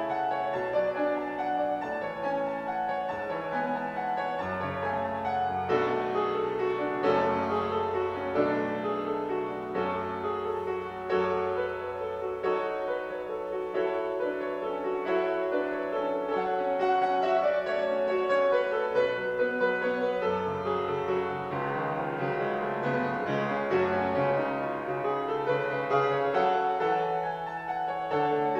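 Grand piano played solo: a continuous piece of chords and melody over held bass notes.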